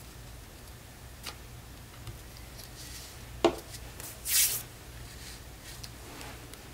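Paper craft materials handled on a cutting mat: a few light ticks, one sharp click about three and a half seconds in, then a short papery rustle a moment later.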